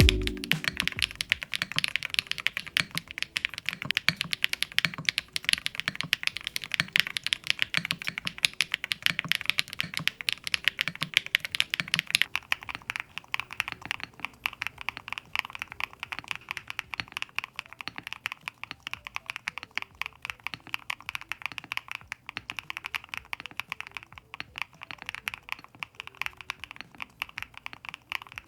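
Rapid, continuous typing on a mechanical keyboard with frosted keycaps: many key clicks a second. The typing gets a little quieter from about twelve seconds in.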